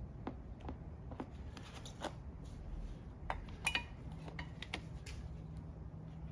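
Metal suspension strut parts being handled, giving scattered light clinks and knocks, the loudest pair with a brief metallic ring a little past the middle. A low steady hum comes in about two-thirds of the way through.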